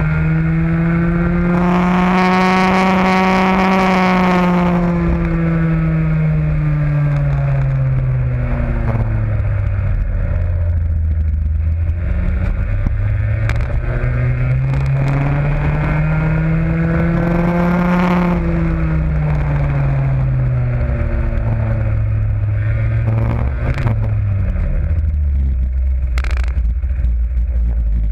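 Raket 120 two-stroke kart engine heard onboard, revving up and easing off twice in long smooth swells, then dropping to a low steady idle near the end as the kart pulls up and stops. A few short clicks sound over it.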